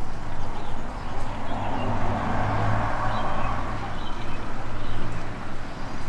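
A road vehicle passing by, its sound swelling to a peak around the middle and then fading away.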